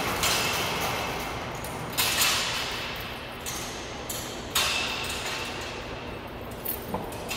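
Overhead sectional garage door being pushed up by hand, its panels and rollers running up the tracks in three noisy surges about two seconds apart, each dying away. A couple of light knocks near the end.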